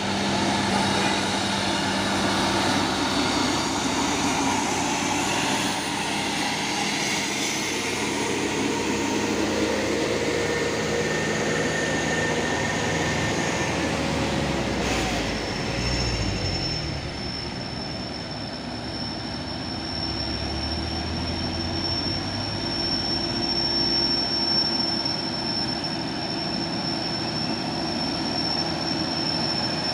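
Heavy diesel truck running under load on a climb, a dense rumble whose engine pitch shifts about halfway through. A steady high-pitched squeal sets in around the same point and holds to the end.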